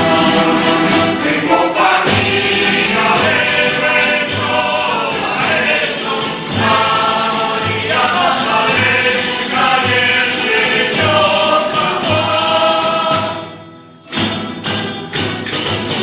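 A group of singers performs a traditional dawn song (aurora) in chorus, with a steady tambourine beat and instrumental accompaniment. The song ends about thirteen seconds in, followed by a few separate sharp strikes.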